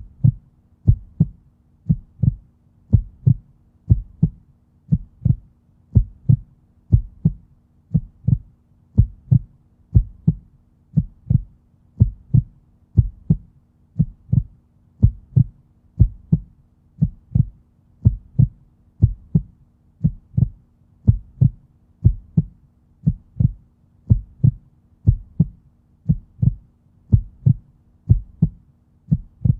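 Heartbeat beating steadily at about one beat a second, each beat a low double lub-dub, over a faint steady hum.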